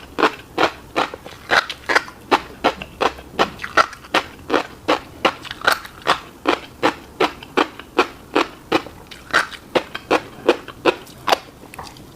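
Close-miked wet chewing of a mouthful of fish roe and rice: quick, moist smacking clicks, about three a second, all through.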